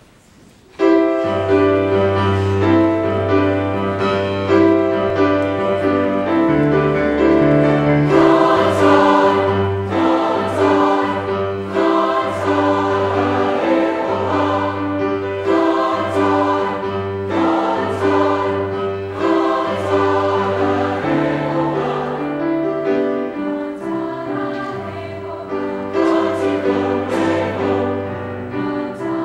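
A church chapel choir singing an anthem, with sustained low bass notes beneath. The music starts suddenly about a second in.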